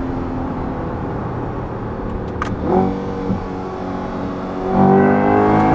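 Chevrolet Corvette C8 E-Ray's 6.2-litre V8 through an open-valve titanium exhaust with a large X-pipe, heard from inside the cabin with the top down. It runs steadily under way, gives a sharp crack about two and a half seconds in, like the cracks on a gearshift, and then revs up hard near the end, its loudest moment.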